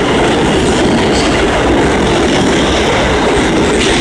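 R160 subway train running past the platform at speed: a loud, steady rumble of steel wheels on rail, with a few clacks as the wheels cross rail joints.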